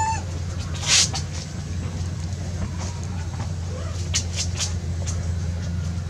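Steady low motor hum throughout. About a second in comes a sharp rattle, and around four seconds in a few quick clinks, from a young macaque moving about and climbing in its wire cage.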